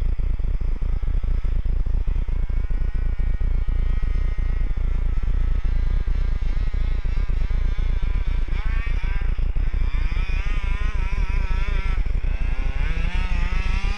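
Distant buzz of a 27cc two-stroke gas engine in a large-scale FG RC truck, its pitch rising and falling as the throttle is worked, louder and busier in the second half. Under it, a loud steady low rumble.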